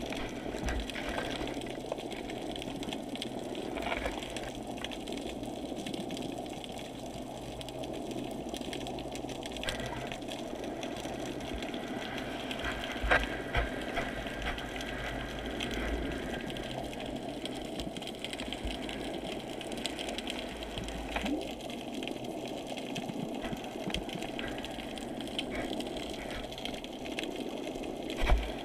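Muffled underwater noise picked up through a GoPro's waterproof housing: a steady dull water rush with a low hum beneath it, and a few sharp knocks, the loudest about halfway through and another near the end.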